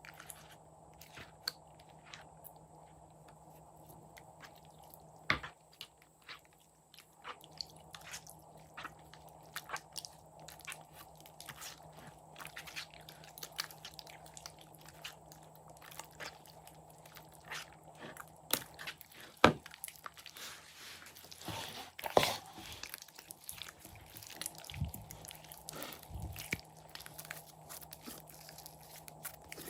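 Slime being worked by hand: a dense run of small sticky clicks and crackles. A few louder snaps come about five, nineteen and twenty-two seconds in.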